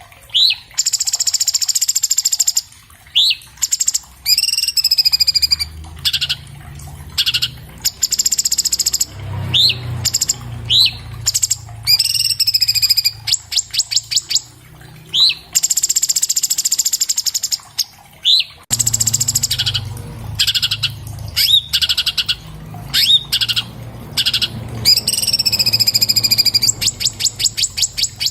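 Orange-bellied leafbird (cucak cungkok) singing loudly in quick repeated phrases: high whistles that slur downward, short upward-sweeping notes and fast rattling trills.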